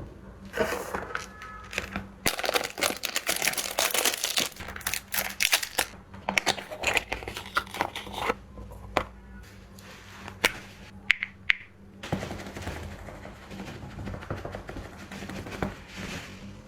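Product packaging being crinkled and torn open, with dense crackling for most of the first half and a few sharp crackles after it. From about 12 seconds in it turns to softer, steadier rustling, all over a faint steady hum.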